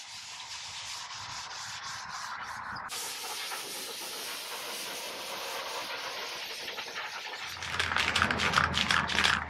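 Red Scotch-Brite pad scuffing the sealed surface of a skateboard deck, a steady scratchy hiss of abrasive rubbing that keys the surface so the paint will adhere. Near the end quicker, separate scrubbing strokes come in over a low hum.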